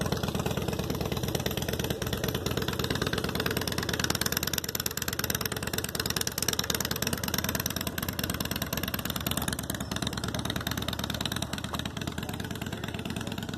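Vehicle engine running steadily, easing off slightly toward the end.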